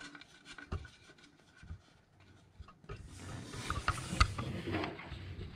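Hands handling small fittings on a concealed shower mixer body: light clicks and a knock, then from about three seconds in a louder stretch of rubbing and scraping with sharp clicks.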